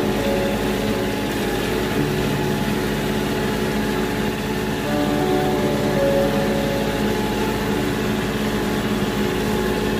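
Tractor engine running steadily, with music playing over it.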